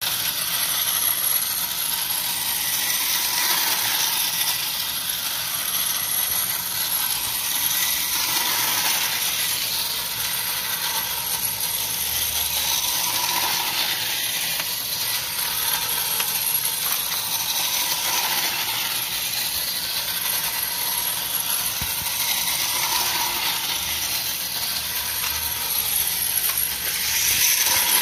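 Motor and gearing of a pre-war Lionel No. 8 toy electric locomotive running steadily, swelling and fading about every four to five seconds.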